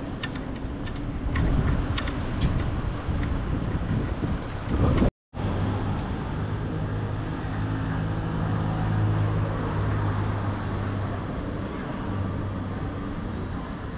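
Road traffic noise from a city street, with a few sharp knocks in the first few seconds. It cuts out for a moment about five seconds in, then resumes with a steady low hum under it.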